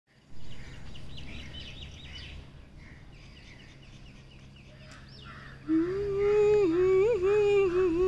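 Birds chirping in quick series of short high notes over a steady low outdoor background rumble. A little past halfway, someone starts humming a tune, holding one steady note that wavers and dips slightly.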